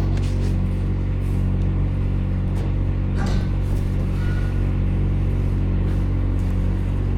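Front loader's engine running steadily at an even pitch, with a brief higher-pitched sound about three seconds in.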